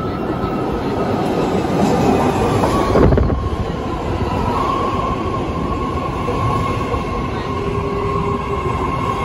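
A new BART Fleet of the Future train pulling into an underground station platform. A rising rush of rail noise peaks about three seconds in as the front cars pass, then a steady whine holds while the train slows along the platform.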